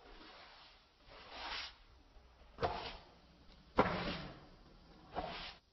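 Kinetic sand being pressed and squished: a soft, grainy swish that builds, then three sharper crunches a little over a second apart, the middle one loudest.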